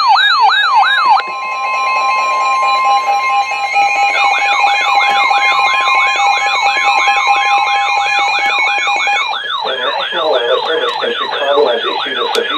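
An electronic yelping siren sweeps up and down about three times a second. About a second in, the steady two-tone Emergency Alert System attention signal starts and holds until roughly nine seconds in. The siren yelp returns partway through and continues to the end, with a voice starting underneath it near the end.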